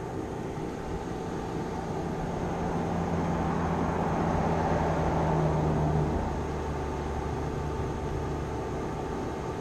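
A distant engine drone that swells to its loudest about six seconds in, then drops back, as of a motor passing by.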